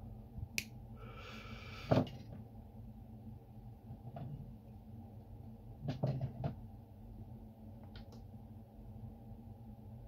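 Light clicks and taps of small parts being handled on a workbench, the loudest about two seconds in and a cluster about six seconds in, with a brief hiss just before the first, over a steady low hum.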